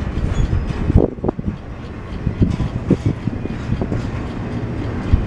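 Double-stack container well cars rolling past on the rails: a steady low rumble of wheels on track with irregular knocks and clanks, the loudest about a second in.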